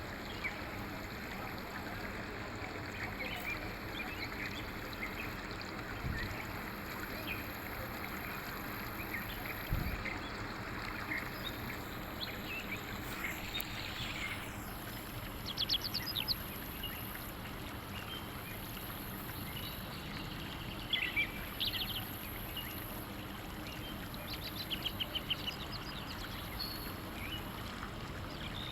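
Steady running water, like a stream, with small birds chirping over it; quick trills of rapid high chirps come about halfway through, again around 21 seconds in, and near the end.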